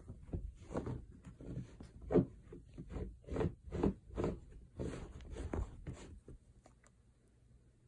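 Corgi scratching and pawing at a fluffy mat to arrange its bed, its claws scraping the fabric in quick strokes about twice a second, stopping near the end.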